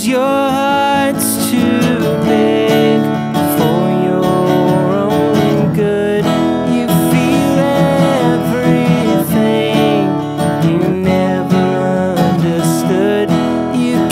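A man singing while strumming an acoustic guitar; his voice holds long notes that bend and waver.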